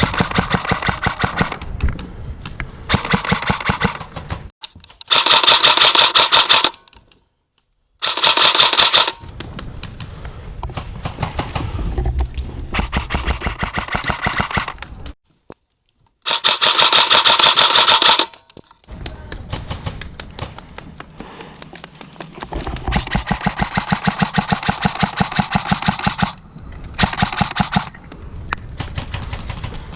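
Airsoft guns firing in rapid strings of shots, rattling fast click after click. The loudest full-auto bursts come about five, eight and sixteen seconds in, and the sound cuts out abruptly three times.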